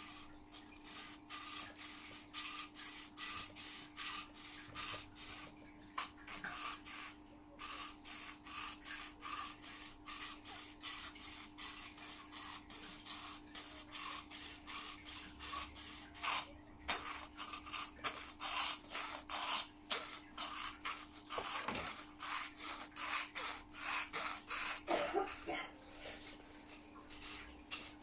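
Razor saw cutting through a plastic model-kit fender part, in quick, rhythmic back-and-forth rasping strokes, a few a second.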